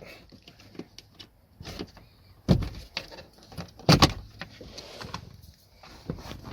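Plastic dashboard trim panel being pried off its clips with a plastic panel removal tool: scattered small clicks and rubbing of plastic, with two louder knocks about two and a half and four seconds in.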